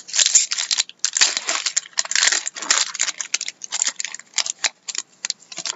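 Foil wrapper of an Upper Deck Artifacts hockey card pack being torn and crumpled in the hands, a run of quick, irregular crinkling crackles.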